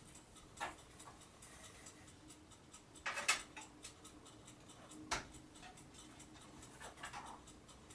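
Faint, scattered clicks and knocks of PC case parts being handled and pulled on, loudest about three seconds in and again about five seconds in.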